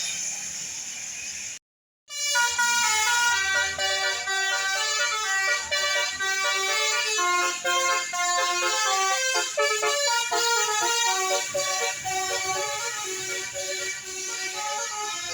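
Indonesian bus 'telolet' multi-trumpet air horn playing a quick melody of stepped notes, several tones sounding together, starting about two seconds in after a short stretch of hiss and a sudden silent break.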